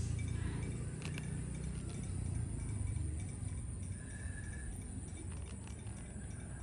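Low wind rumble on the microphone, with a few faint small clicks from the metal snap and hook as a soft frog lure is refastened to the fishing line. A brief high chirp sounds about four seconds in.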